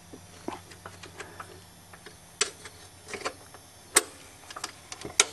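Irregular sharp metallic clicks and taps from a wrench working the bolts of a Suzuki Z400 ATV's rear brake caliper, the loudest about four seconds in.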